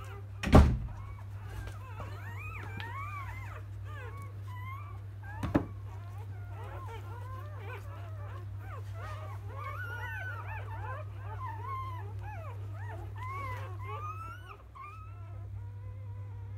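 A litter of newborn Labrador Retriever puppies squeaking and whimpering, many thin high cries overlapping without a break, typical of newborns seeking to nurse. Two thumps cut in, about half a second in and about five seconds later, over a steady low hum.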